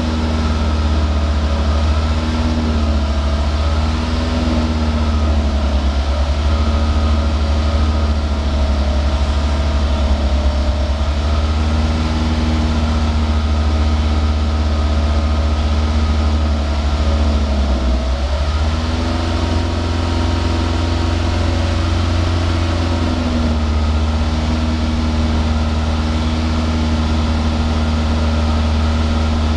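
Exhaust of a Toyota 2SZ-FE 1.3-litre four-cylinder engine idling steadily at the tailpipe. Past the middle the idle dips for a moment, then runs a little faster for a few seconds before settling back.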